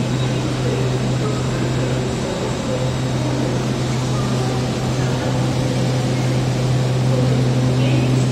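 GWR Class 800 Hitachi train standing at the platform, its underfloor equipment giving a loud, steady low hum.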